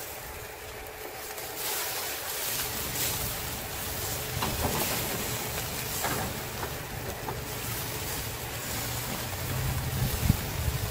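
Oiled fish pieces sizzling on a charcoal grill in a wire grill basket, with scattered sharp crackles and pops, the loudest near the end. A low steady rumble runs underneath.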